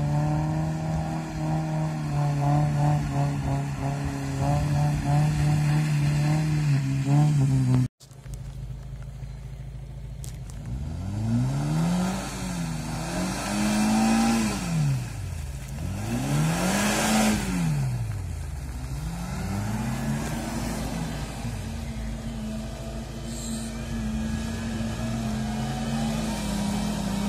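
Suzuki Jimny's engine pulling steadily as it drives through muddy water. After an abrupt break about eight seconds in, the engine revs up and down several times in rising and falling sweeps, with two loud rushes of noise as the wheels churn the mud.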